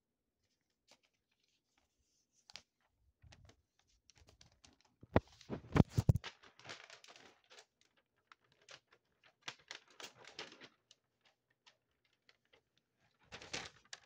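Handling noise: a paper instruction leaflet rustling in the hands, with scattered clicks and knocks and a burst of loud knocks and rustling about five to six seconds in.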